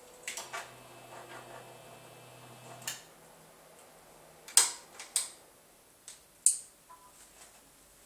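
The robotic arm's bipolar stepper motors give a low steady hum for the first three seconds or so. Over it and after it come a few sharp clicks and knocks from handling the bench setup, the loudest three in the second half.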